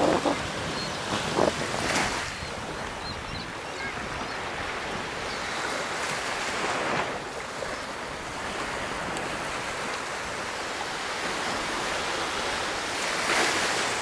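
Small waves lapping and washing up on a sandy beach, with louder washes about two seconds in, around six to seven seconds in and near the end.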